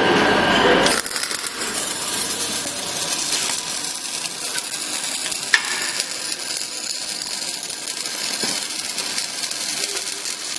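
Factory machinery running: a steady high hiss with light metallic rattling and one sharp click about five and a half seconds in.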